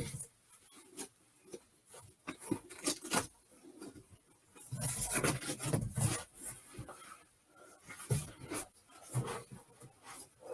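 Rustling, rubbing and scraping from fursuit pieces and their packaging being handled close to the microphone, with scattered light knocks and a longer stretch of rustling about halfway through.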